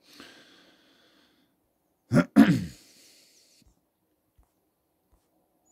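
A man clearing his throat: two short, rough bursts about two seconds in, the second falling in pitch, after a faint breath in.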